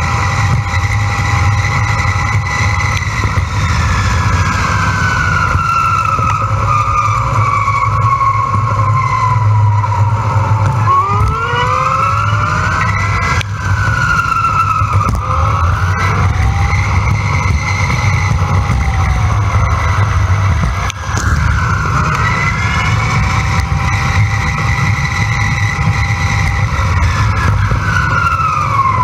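Electric bike motor whining. Its pitch slides down and back up several times as the bike's speed changes, over a steady low rumble of wind and road on the camera microphone.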